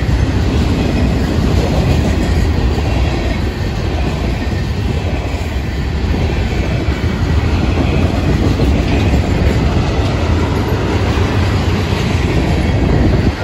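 Freight cars rolling past close by: a loud, steady rumble and clatter of steel wheels on the rails.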